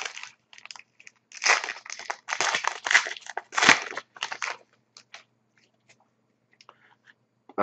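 A 2011-12 Panini Contenders hockey card pack's wrapper being torn open and crinkled by hand, a few seconds of crackling starting about a second in, then a few faint ticks as the cards are handled.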